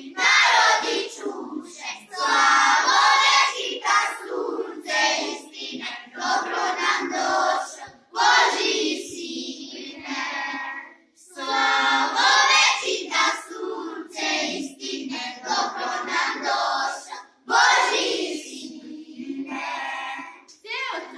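A group of children singing a Christmas carol together in unison, in phrases of a few seconds with short breaks between them.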